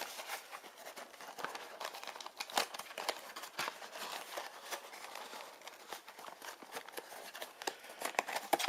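Cardboard blind-box toy packaging being handled and opened: scattered crinkling with many small clicks and taps.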